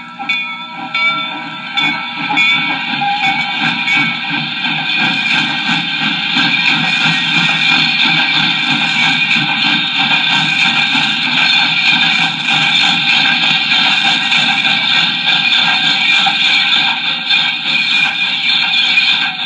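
A continuous sound effect played from a children's sound-effects LP: a dense rumble under several steady ringing tones. It grows louder over the first few seconds, then holds steady.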